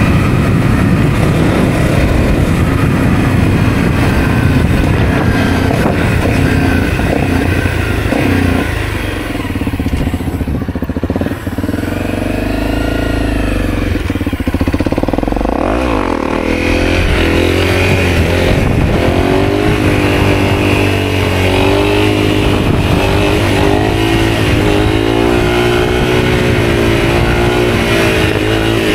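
Honda CRF250L's single-cylinder four-stroke engine running under way. Its pitch drops and the sound eases for a couple of seconds near the middle, then climbs again, and through the second half it wavers up and down with the throttle.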